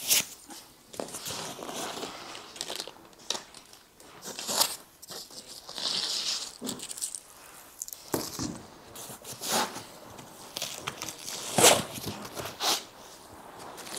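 White foam packing sheets and blocks being handled and pulled out of a cardboard box: irregular rustling and scraping of foam against foam and cardboard, with a few sharper, louder scrapes.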